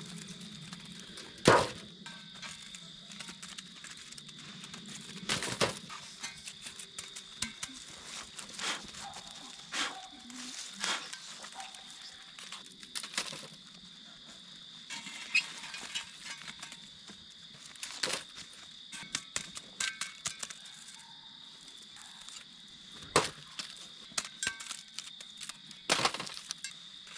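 Metal shovel scraping through campfire ash and coals and knocking against foil-wrapped baked potatoes as they are dug out and set on a metal baking tray: a string of sharp knocks and scrapes, the loudest about one and a half seconds in. A steady high-pitched hum sits underneath.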